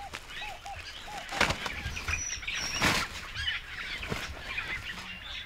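Outdoor birdsong: a quick series of short, arching call notes at the start, then scattered high chirps and a brief whistle. Three sharp knocks or rustles, the loudest sounds, come at about one and a half, three and four seconds in.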